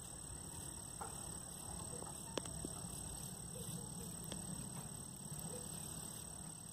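Quiet outdoor background: a steady high-pitched whine over a low rumble, with a few light clicks, the sharpest about two and a half seconds in.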